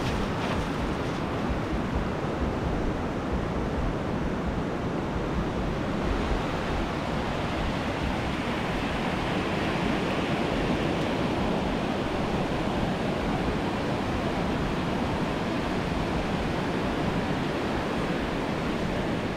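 Small surf breaking and washing up a sandy beach in a steady rush of noise, with wind rumbling on the microphone.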